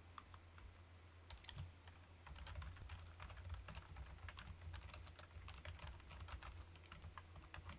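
Computer keyboard being typed on, faint quick irregular key clicks starting about a second and a half in, over a steady low hum.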